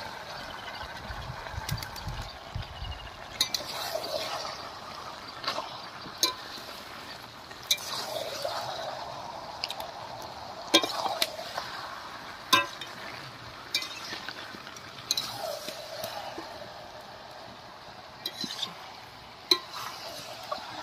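Steel spatula stirring and scraping chicken pieces in thick spice paste in a steel kadai, with about ten irregular sharp clinks of metal on the pan over a soft wet scraping.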